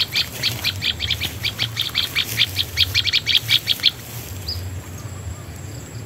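Recorded bird call played from an MP3 player as a lure for trapping birds: a rapid, even series of high chirps, about five a second, that stops about four seconds in.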